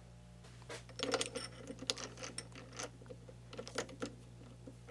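Short metallic clicks and knocks of brass hex stock being set into a mini lathe's three-jaw chuck and the jaws being closed on it by hand, over a steady low hum.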